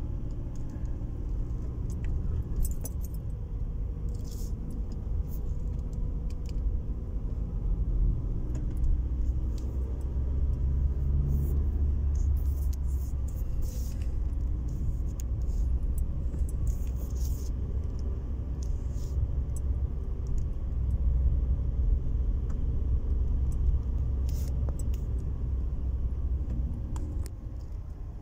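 Car's cabin while driving: steady low engine and road rumble, with scattered light clicks and small rattles from inside the car.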